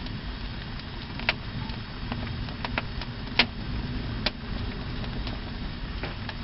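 Fire: a steady low roar of flames with sharp, irregular crackles every second or so, the loudest about three and a half seconds in.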